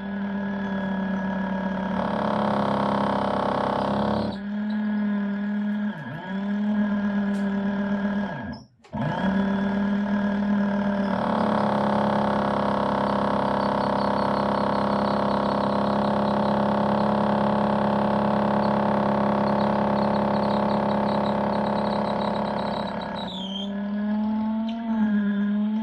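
Electric drill boring into a thick concrete wall, its motor running with a steady whine under load. The pitch sags as the bit bogs down about six and eight seconds in, the drill stops for a moment just before nine seconds and starts again, and the pitch wavers again near the end.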